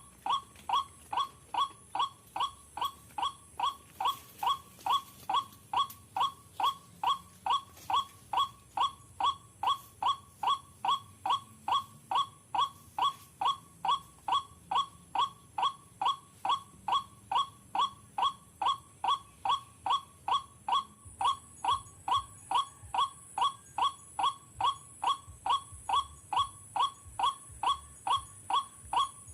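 White-breasted waterhen call, a short sharp note repeated at an even pace of about two and a half calls a second without a break.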